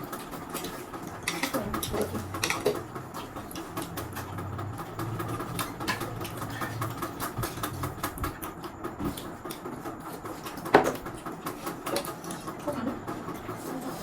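Close-up eating of spicy instant noodles: chewing, with a steady run of small wet clicks, and one louder sound about eleven seconds in.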